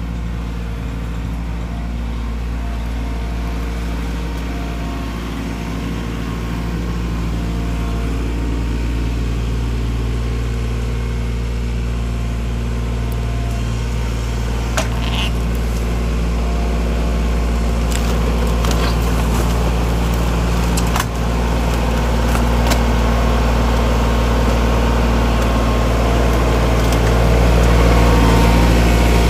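New Holland Workmaster 25 compact tractor's diesel engine running steadily, a little louder near the end, with a few sharp knocks from debris partway through.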